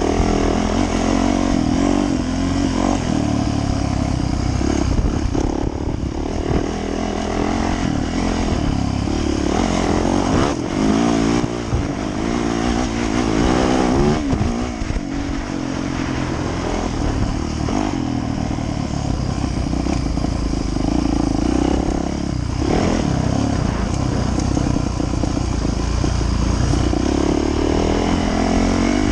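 Yamaha YZ450F dirt bike's single-cylinder four-stroke engine running under way, revving up and down. The pitch rises and falls repeatedly around the middle.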